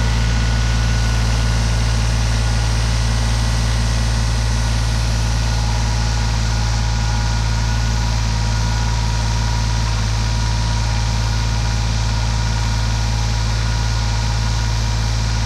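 Old 16-horsepower Kubota compact tractor's engine running steadily under load while pulling a two-bottom moldboard plow through the soil, working hard because the plow is digging in deep.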